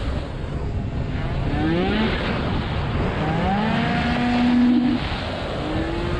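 Tuned small two-stroke racing scooter engine heard onboard under acceleration, with wind rushing over the microphone. Its pitch climbs in two long rises, the second held high, then drops about five seconds in.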